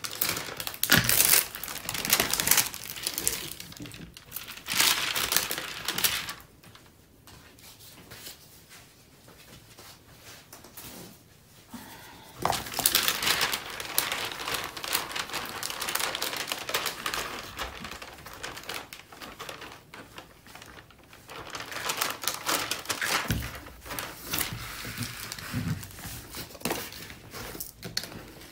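Thick plastic cover film on a diamond painting canvas crinkling and crackling as it is handled and pressed back onto the tacky adhesive by hand. It comes in bursts, with a quieter stretch of several seconds in the middle.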